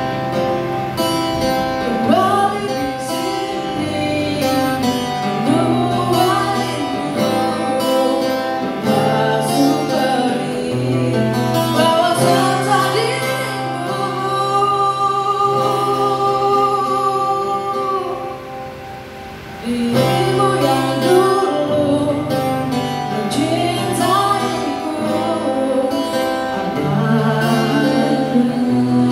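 Live acoustic pop ballad: a man singing into a microphone over strummed acoustic guitar, played through PA speakers. A long note is held in the middle, and the music drops briefly about two-thirds through before coming back in full.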